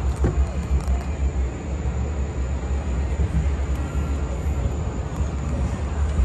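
Wind buffeting the microphone aboard a moving Skyway cable car: a steady low rumble that rises and falls.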